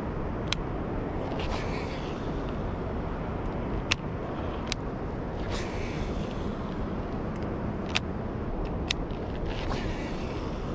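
Steady rumble of road traffic, with a few sharp clicks now and then.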